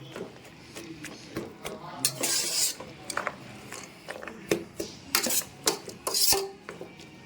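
A spoon scraping and clinking against a cooking pot as chicken pieces and tomatoes are stirred and mashed, with a few sharp knocks against the pot.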